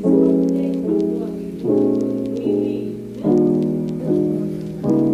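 Background music led by piano, a chord struck about every 0.8 seconds and fading away before the next one.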